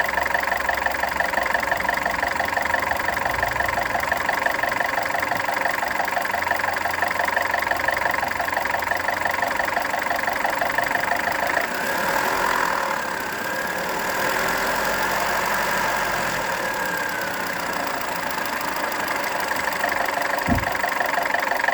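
Volkswagen Polo engine idling with a fast, regular extraneous knock that the owner says goes away with a little throttle. Around the middle the ticking blurs for a few seconds, then returns; a short low thump comes near the end.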